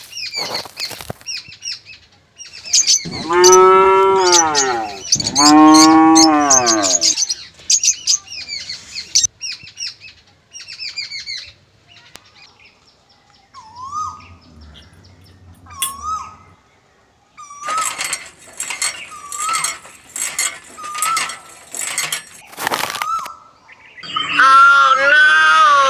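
Cattle mooing: two long moos a few seconds in, with birds chirping and twittering through the rest.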